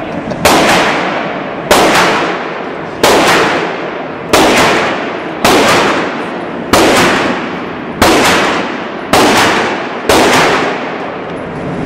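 Nine single gunshots in an indoor shooting range, about one every 1.2 seconds, each followed by a long echo off the range walls.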